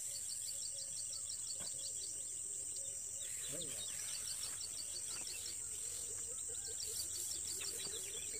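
Outdoor scrubland ambience: a steady high-pitched insect drone, with runs of rapid, evenly repeated high chirps at about five a second.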